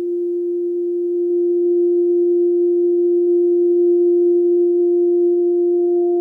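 A sustained musical note filtered down to its fundamental: a steady, almost pure tone with only a faint trace of its octave. With the overtones stripped away, the instrument's timbre cannot be recognised.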